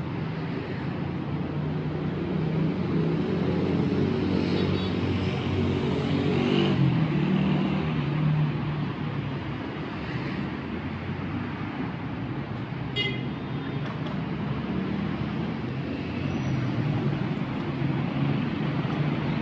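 Street traffic: car engines running and passing, an engine hum swelling and fading in the first half. A short high-pitched beep is heard about two-thirds of the way through.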